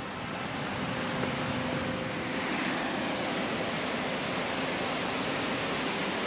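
Dettifoss waterfall's steady roar, a constant rushing of heavy falling water.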